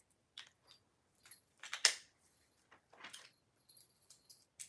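Small metal items jingling and clinking as they are handled, in a string of short separate clatters, the loudest a little under two seconds in.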